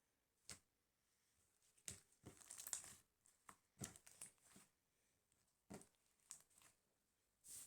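Faint crinkling and rustling in short scattered bursts, with a denser stretch of crackling between about two and three seconds in.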